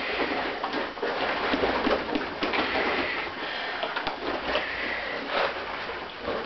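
Latex rubber suits rubbing and squeaking against each other: a dense rustle with crackles and a few short high squeaks.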